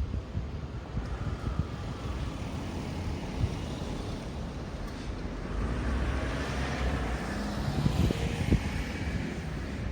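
A road vehicle passing by, its noise swelling in the second half and easing again near the end, over wind on the microphone.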